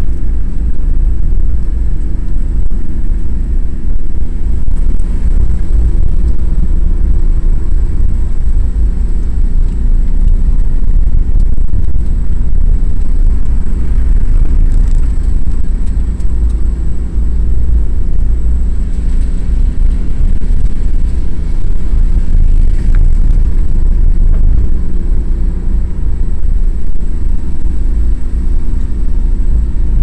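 Car driving at low, steady speed, heard from inside the cabin: a heavy, continuous low rumble of engine and tyres on a rough road.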